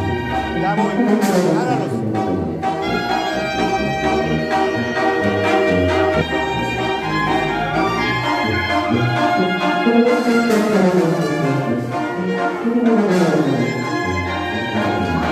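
Brass band music, with trumpets and trombones playing and lower brass lines repeatedly running down in pitch.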